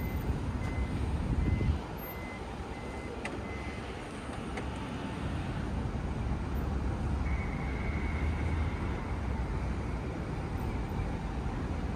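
City street traffic rumble, louder for the first two seconds until it cuts off suddenly. A short high electronic beep repeats about once a second and stops about four seconds in; from about seven seconds in a steady high tone sounds over the traffic.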